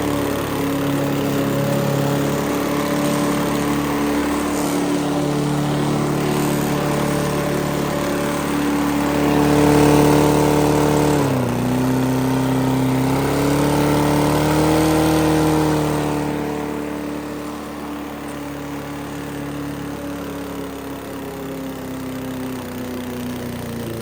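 Lawn mower engine running hard near full throttle, its pitch sagging sharply about eleven seconds in and then recovering: it is bogging down and shaking because the blade is bent. About two-thirds of the way through it drops to a quieter, lower, steadier running.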